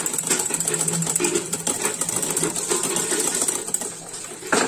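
Wire whisk beating eggs by hand in a bowl, rattling rapidly and steadily against the bowl's sides, with a sharper knock near the end.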